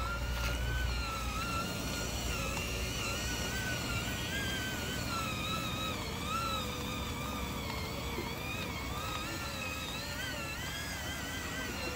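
Radio-controlled dump truck's electric motor and gearbox whining as it drives through mud, the pitch wavering up and down with the throttle.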